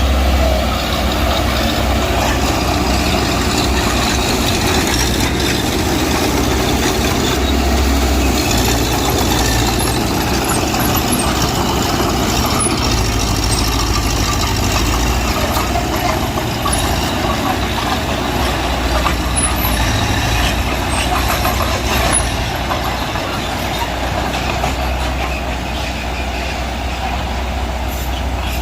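Heavy diesel earthmoving machinery running steadily, its low engine rumble swelling and easing every few seconds.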